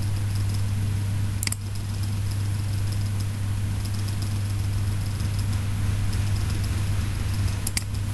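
Steady low electrical hum with hiss underneath, and two sharp mouse clicks, one about a second and a half in and one near the end.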